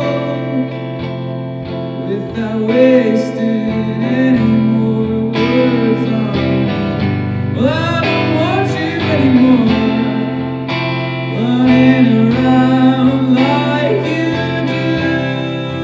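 Soundtrack song: a singing voice over guitar, playing throughout.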